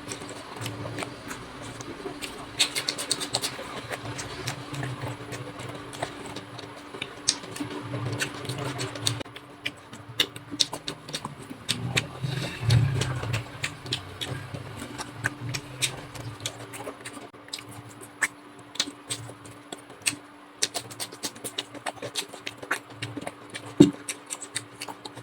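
Close-miked eating sounds of a person chewing chicken curry and rice: irregular chewing with many small clicks and smacks of the mouth, over a steady faint hum.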